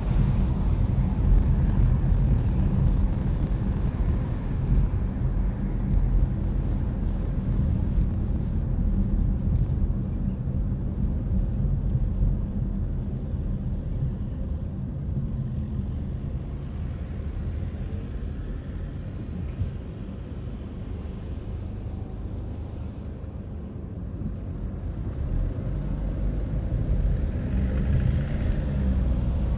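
Car driving on a town street: steady engine and tyre noise on the road. It quietens for a few seconds about two-thirds of the way through, then builds again near the end.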